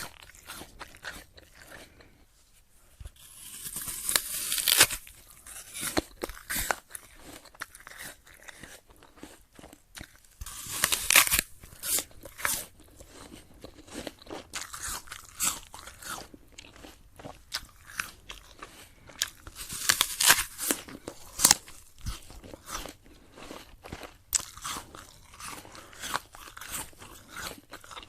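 A person biting into a crisp apple and chewing it: a few loud, sharp crunching bites spaced several seconds apart, with steady quieter chewing crunches in between.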